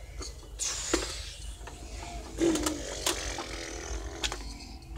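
Scattered sharp clicks and knocks with bursts of rustling: handling noise from things being moved about.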